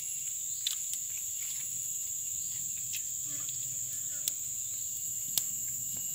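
Steady high-pitched drone of insects in tropical forest. About five sharp snaps from a small wood fire, the loudest about five seconds in.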